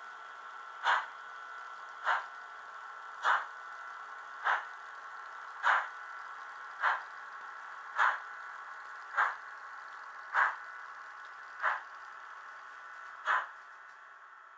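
Märklin H0 model steam locomotive's sound decoder playing slow, even steam-exhaust chuffs through its small speaker, about one every 1.2 seconds, over a steady high hum from the running model.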